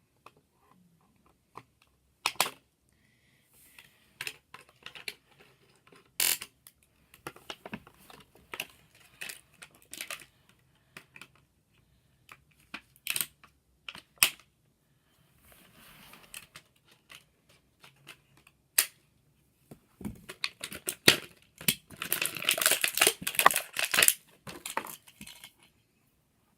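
Plastic toy packaging being handled and opened: scattered sharp clicks and knocks of plastic, then a dense burst of crinkling and cutting about twenty seconds in.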